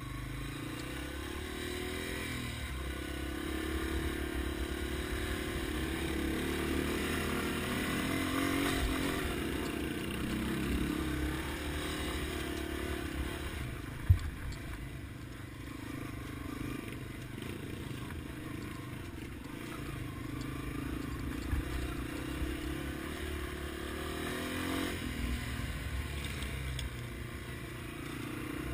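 Yamaha TW200 dual-sport motorcycle's single-cylinder four-stroke engine running over a rough dirt trail, its pitch rising and falling with the throttle. A single sharp knock comes about 14 seconds in.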